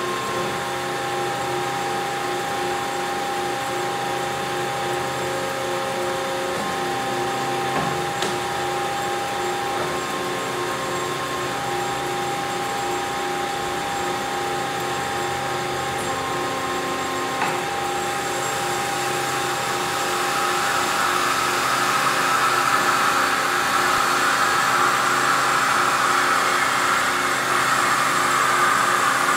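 Hyd-Mech S20A automatic bandsaw running, a steady motor hum with several held tones as the saw head lowers. About two-thirds of the way in, a louder, rougher cutting noise builds as the blade bites into the workpiece.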